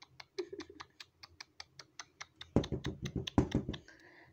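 Rapid, even ticking, about six sharp clicks a second, with a few louder, heavier knocks about two and a half seconds in.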